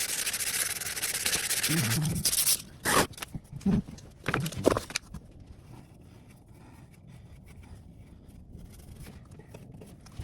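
Sandpaper rubbing on the wood of a repaired table leg. It stops about two and a half seconds in, followed by a few brief knocks and handling sounds.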